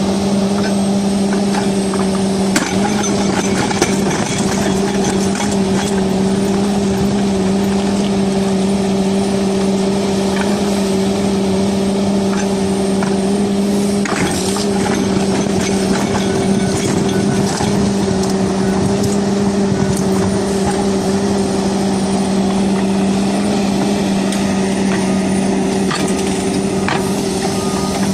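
Doosan DX-series crawler excavator's diesel engine running under load with a steady drone that holds one pitch, while its single-shank ripper tooth breaks rock, giving scattered cracks and scrapes of stone.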